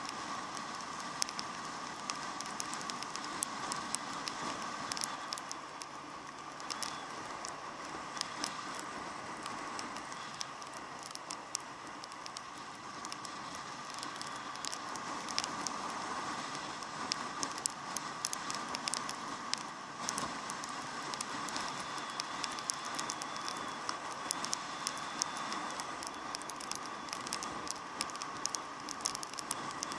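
Raindrops crackling and tapping against an action camera's waterproof case in many quick sharp clicks, over a steady muffled rush of wind and road noise from a moving motorcycle.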